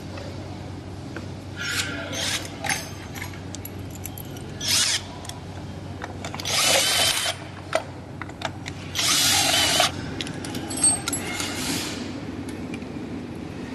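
A power tool running in short bursts, about five times and roughly a second each, with sharp clicks and clinks of metal parts between them.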